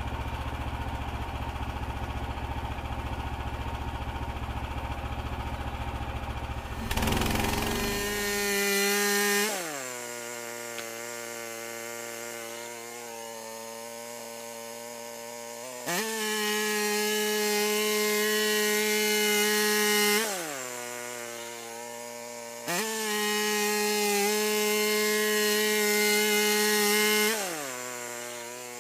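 Frontier OS27 bandsaw sawmill's small gas engine idling, then revving up about seven seconds in as the band blade is run through a cherry cant. The engine speed then drops back with a falling pitch and climbs again several times, loudest while it runs at high speed.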